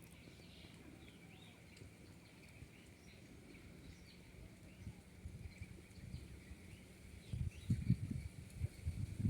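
Faint chirping of small birds over a steady high-pitched drone. A run of low thumps comes near the end.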